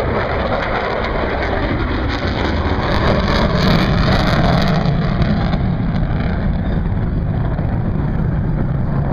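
Jet noise from a B-1B Lancer's four turbofan engines as the bomber passes low and climbs away. It is loudest about three to four seconds in, then settles into a steady low rumble as the aircraft draws away.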